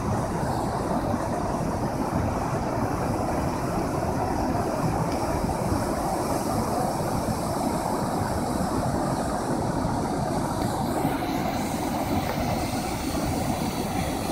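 A large waterfall in flood, with muddy water pouring over rock ledges: a steady, deep rush of falling water.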